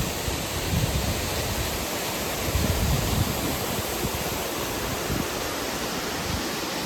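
Waterfall water rushing in a steady, loud noise, with a few low rumbles about a second in and again around three seconds in.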